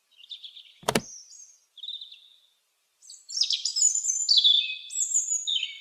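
Robin singing: a few short high chirps, then from about three seconds in a quick run of high phrases, each falling in pitch. There is one sharp click about a second in.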